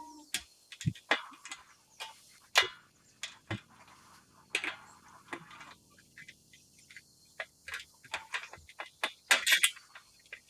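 Scattered sharp clicks and knocks of a perforated metal mounting rail being handled and fitted against a solar panel frame, with a quick run of clinks near the end.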